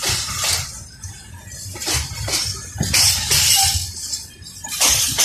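Freight train of open box wagons rolling slowly past, its wheels clanking and screeching in repeated short metallic bursts, often in pairs, over a steady low rumble.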